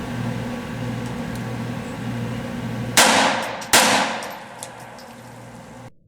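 Two shots from a Taurus TX22 .22 LR pistol, about three quarters of a second apart, each trailing off in echo. The sound cuts off suddenly near the end.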